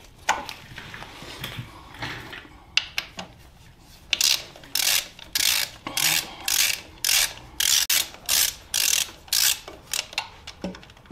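Hand socket ratchet wrench backing out a bolt. After some quieter handling clicks, it settles about four seconds in into a steady back-and-forth rhythm of short rasping clicks, about two strokes a second.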